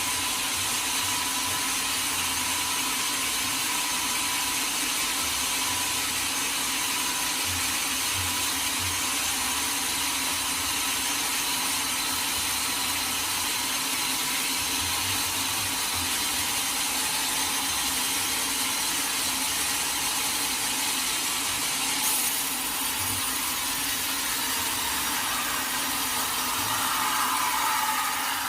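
Sawmill machinery running steadily, a constant motor hum under a continuous hiss. Near the end a rougher, rising sound comes in, typical of the saw beginning to bite into the wood.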